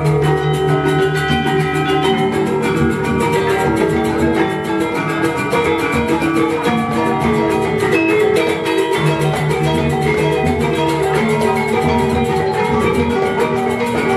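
Balinese gamelan selonding, an ensemble of iron-keyed metallophones struck with mallets, playing a rapid, steady stream of ringing pitched notes.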